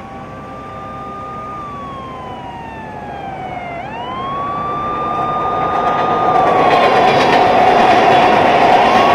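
A siren wailing, growing steadily louder. Its tone holds high, slowly sinks, then swings quickly back up, twice, over a steady lower hum and a rising hiss.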